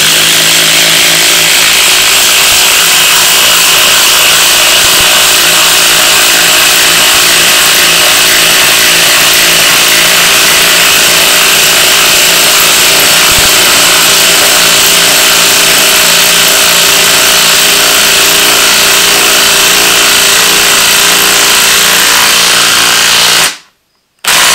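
Ryobi half-inch impact wrench hammering continuously at a steady rate as it drives a long lag screw down into a wooden log. It stops just before the end, then gives one brief final burst.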